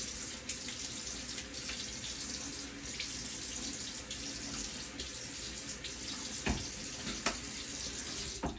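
Water running steadily from a sink tap while a face is rinsed, with a couple of brief splashes near the end.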